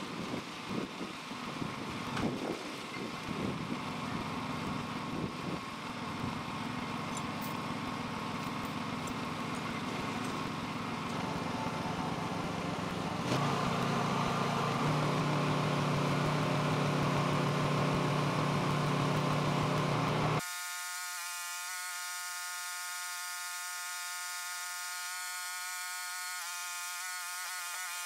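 Engine running steadily while it powers a hydraulic log loader's boom and grapple, with a few low thumps in the first seconds. About 13 seconds in it gets louder with a deeper drone as the hydraulics come under load. About 20 seconds in the sound changes abruptly to a thin, steady buzz with the low end cut away.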